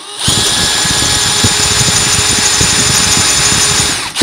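Cordless drill-driver running at full speed, drilling out the stuck pivot bolt of a folding knife: a steady high motor whine with grinding. It winds down near the end, with a short knock as it stops.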